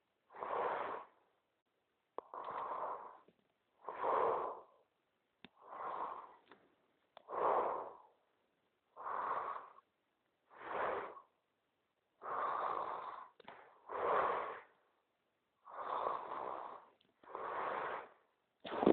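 A man snoring: noisy, rasping breaths in a steady rhythm, one about every one and a half to two seconds.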